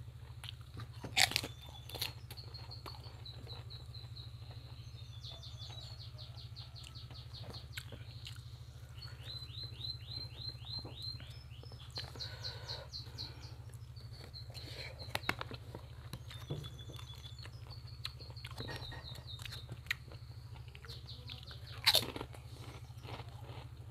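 Close-up eating sounds of lotek with crackers: chewing, with sharp crunches about a second in and again near the end. Runs of rapid, high chirps sound in the background in the middle, over a steady low hum.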